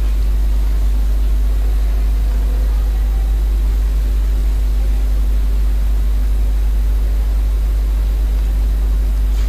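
Steady low rumble with a faint hum and an even hiss, unchanging throughout: background noise in the recording.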